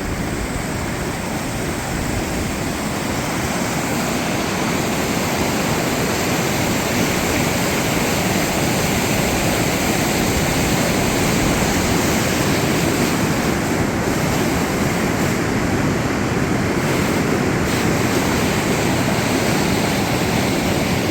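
Swollen floodwater of a river rushing steadily, a dense continuous noise that grows somewhat louder over the first several seconds.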